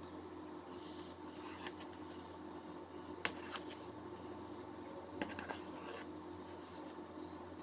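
Knife cutting through set agar-agar jelly in a plastic mould, with a few faint clicks and scrapes of the blade, over a steady low hum.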